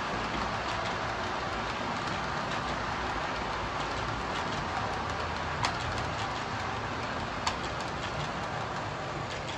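Model passenger coaches rolling along the track: a steady rumbling whir of small wheels on the rails, with a couple of sharp clicks in the second half.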